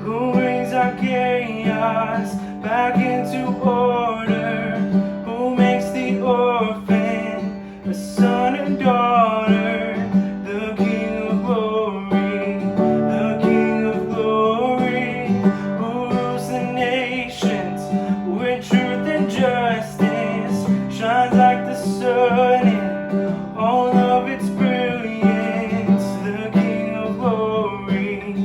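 Worship music with strummed acoustic guitar under a moving melody line.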